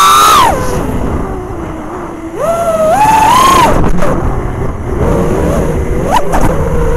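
A 5-inch FPV racing quadcopter's four 2306 2750 kV brushless motors and props whining, heard through its onboard camera's microphone. The pitch rises and falls with the throttle: high at the start, dropping to a low hum, climbing again about two and a half seconds in, with a brief sharp blip near the end.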